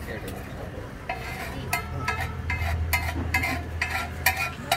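Metal spatula striking and scraping a pav bhaji griddle (tava), ringing metallic clinks about two to three times a second that start about a second in, over a light sizzle and a steady low hum.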